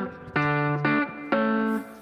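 Background music: a guitar playing single plucked notes and short held notes in a steady rhythm, a new note about every half second.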